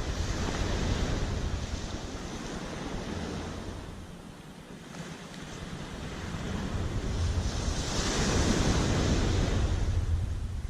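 Surf breaking and washing up the beach, easing to a lull about halfway through and then swelling loud again as the next wave comes in, with wind rumbling on the microphone.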